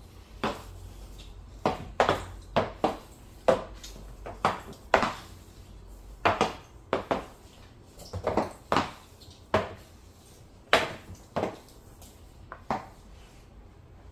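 Hockey stick blade striking a puck again and again: about two dozen sharp clacks at an uneven pace, some coming in quick pairs.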